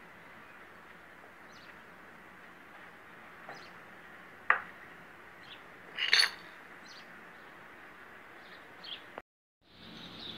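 Steel gears and shaft parts clinking as they are handled and set down on a tile floor: one sharp clink about halfway, then a short flurry of clinks a moment later. Faint bird chirps come and go over a steady hiss, and the sound drops out briefly near the end.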